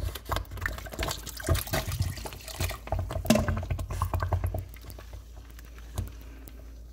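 Spoon stirring thick, lumpy cornmeal porridge in a stainless steel pot: wet sloshing with quick clicks as the lumps are worked out. The stirring stops about four and a half seconds in, leaving a low steady hum.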